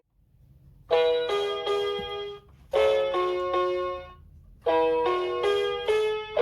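Children's electronic keyboard playing a simple melody in a piano-like voice. It comes in three short phrases of a few notes each, with brief pauses between them.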